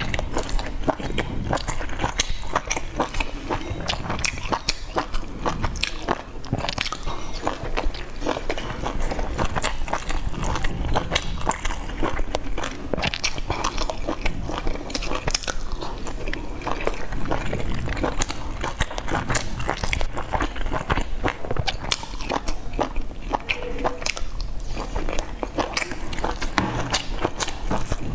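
Chewing and biting of soft steamed dumplings dipped in chili sauce, picked up close to the mouth, with many small mouth clicks throughout.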